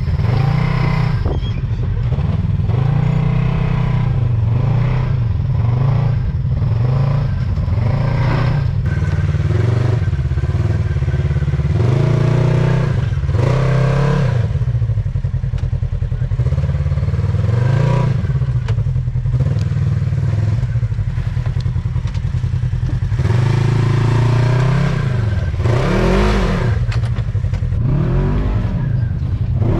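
Polaris RZR side-by-side engine revving up and dropping back over and over, the throttle blipped every second or two, as the machine crawls over rocks.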